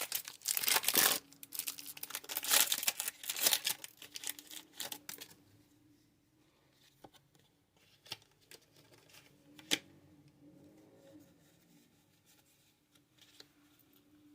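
Foil Pokémon booster pack wrapper being torn open, a crinkling, tearing noise for about the first five seconds, then quiet handling of the pack with a single sharp click later on.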